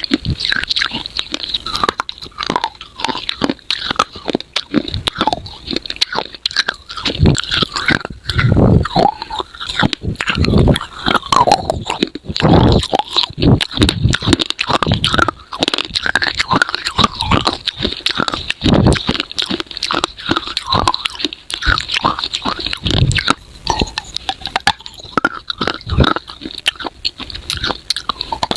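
Close-miked crunching and chewing of dry edible clay pieces: repeated hard bites that break the clay with sharp crackling crunches, then grinding chews between them.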